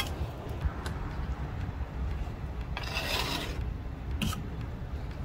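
Mortar rasping against veneer stone: one longer scrape about three seconds in and a couple of short knocks, over a steady low rumble.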